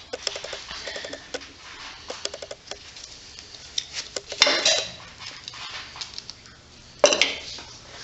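Hand tools and small metal engine parts being handled while an engine is taken apart: a quick run of clicks in the first second, scattered knocks, then two loud metal clatters about four and seven seconds in.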